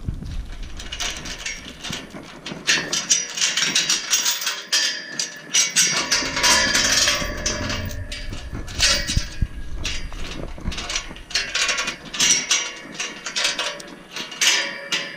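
A chain rattling and clinking against a steel pipe livestock gate as it is unhooked, with irregular metal clanks and scrapes as the gate is moved.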